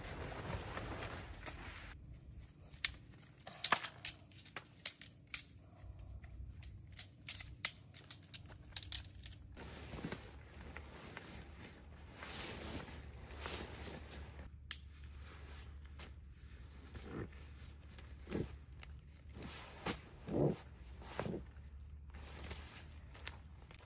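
Small handling noises: rustling and crinkling with many short clicks and knocks, over a steady low hum.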